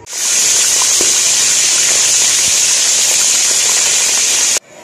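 Raw chicken pieces frying in hot oil, a loud, steady sizzle that starts as the chicken goes into the oil and cuts off suddenly near the end.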